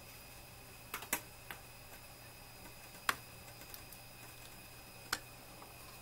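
A few sharp light clicks and taps, a cluster about a second in, the loudest about three seconds in and another about five seconds in, from the CPU socket's retention hardware on the server motherboard being handled and pressed down. A faint steady high whine sits underneath.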